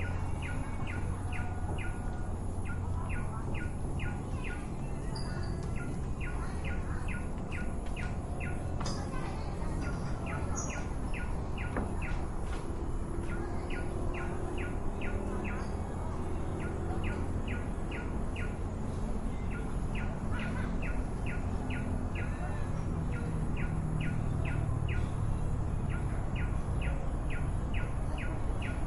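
A bird calling in repeated runs of short, quick chirps, about four a second, over steady low background noise, with faint distant talking in the middle stretch.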